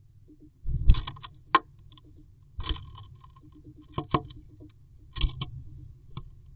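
Irregular knocks, taps and scrapes on the wooden nest box, heard from inside it: about seven sharp hits with short scraping rustles, the loudest about a second in.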